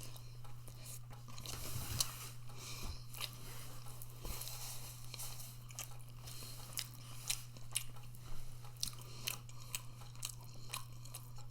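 A person chewing food close to the microphone, with many short mouth clicks, over a steady low hum.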